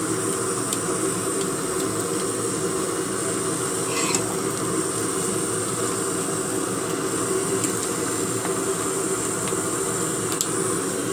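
Steady even hiss of background noise, with a few faint clicks, one about four seconds in.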